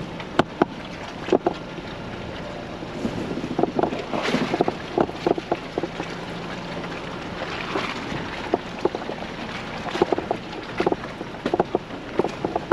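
Ford Bronco crawling over a rutted, rocky trail: a low steady engine hum under wind noise, with frequent irregular knocks and clatter as the truck rocks and bumps through the ruts.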